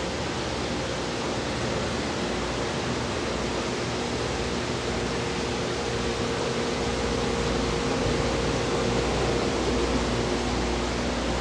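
Steady indoor ventilation noise: an even hiss with a faint hum, and a deeper rumble that grows slightly louder about halfway through.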